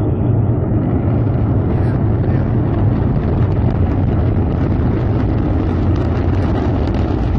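Low, steady rumble of the Antares rocket launch heard from miles away, with wind buffeting the phone's microphone.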